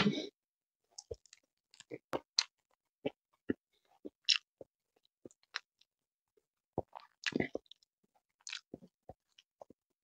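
Close-miked chewing and biting of grilled chicken: a scattered run of short, separate wet clicks and smacks from the mouth. Louder bursts come right at the start and again about seven seconds in.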